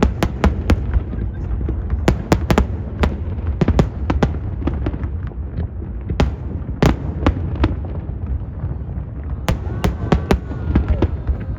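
Aerial fireworks bursting in a rapid, irregular series of sharp bangs, some in quick clusters, over a constant low rumble.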